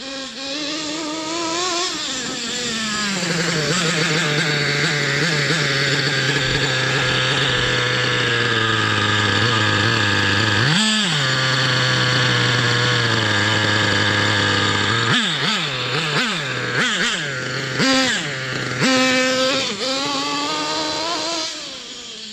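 Thunder Tiger EK4 S2 nitro RC monster truck's Pro 70BX glow engine revving up and running steadily at high revs, with a brief dip about halfway. It then gives a run of quick throttle blips before dropping back near the end.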